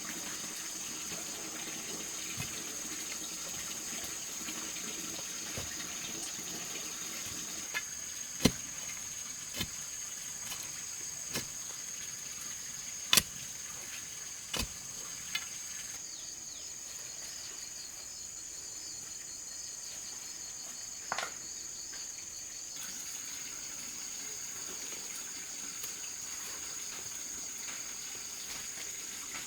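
Steady high-pitched insect buzz over a faint water-like hiss, broken by a handful of sharp knocks, the loudest two about 8 and 13 seconds in.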